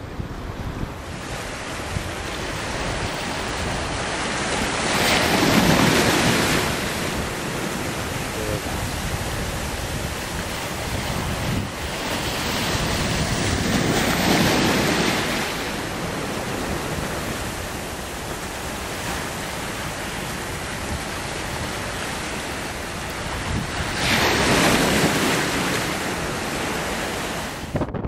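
Waves breaking on the shore: a steady rush of surf that swells up three times, about every nine or ten seconds, with wind buffeting the microphone.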